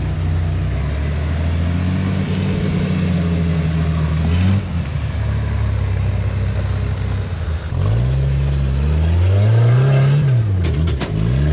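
Off-road rock-crawling rig's engine pulling under load up a rock climb: held fairly steady for about four seconds, then easing off, then revving up and down several times near the end.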